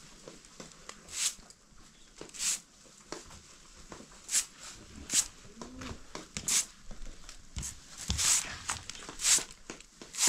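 Short straw broom swishing across a concrete floor in separate strokes, one every second or so at an uneven pace.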